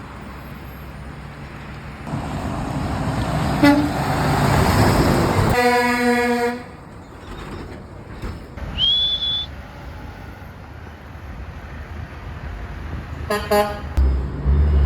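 Road traffic with a truck passing and horn honks: a brief toot about 3.5 seconds in, then a horn blast of about a second just after the truck goes by. A short high tone sounds near 9 seconds, and two quick toots come near the end, followed by a loud low engine rumble.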